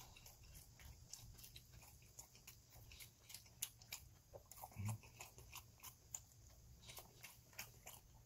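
Faint chewing and wet mouth clicks of a person eating close to the microphone: gimbap, then cold Jjapaghetti noodles lifted with metal chopsticks. There is a brief low sound about five seconds in.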